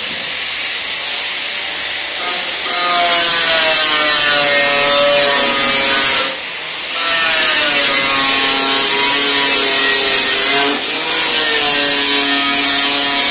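Angle grinder running loud and steady as its disc grinds along the edge of a rusty steel sheet, a high hiss over a motor whine that sags and recovers in pitch as the disc bites. The noise drops briefly twice, about six and eleven seconds in, as the disc eases off the metal.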